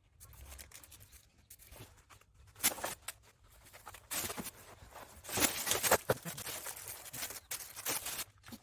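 Plastic litter being handled and sorted by hand: irregular crinkling and rustling with a few sharp clicks, busiest in the middle.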